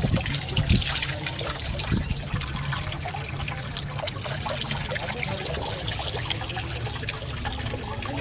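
Water trickling and splashing into a stone basin as a ladle is filled at the spout and poured out over hands and onto a stone statue.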